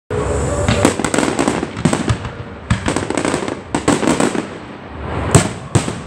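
Fireworks bursting overhead: clusters of rapid crackling pops and bangs, ending with two loud bangs close together.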